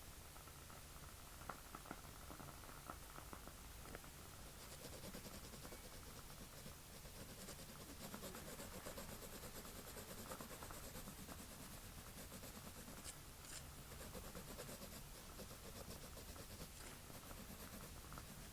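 Faint pencil strokes scratching on paper, starting about four seconds in.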